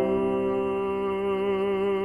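Background music: a slow classical song, with long held notes wavering in vibrato over a sustained accompaniment.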